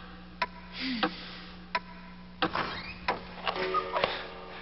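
A series of about six sharp clicks, roughly one every half-second or so, over a steady low hum, with a short whir near the end.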